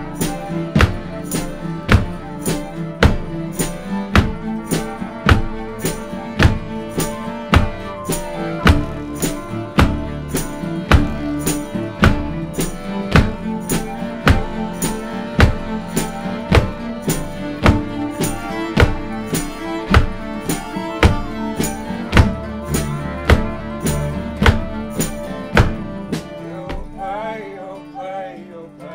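Acoustic folk band playing live, with acoustic guitars, fiddle, cello, double bass and trumpet. A steady percussive beat of about two hits a second runs under them and drops out near the end, leaving softer strings.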